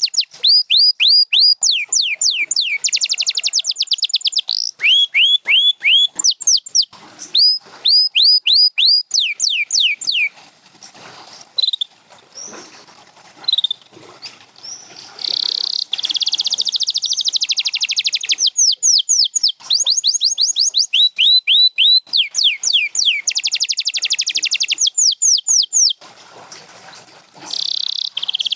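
Domestic canary singing: runs of rapidly repeated whistled notes that each sweep downward, alternating with fast rolling trills. There is a quieter stretch of scattered softer notes from about ten to fifteen seconds in.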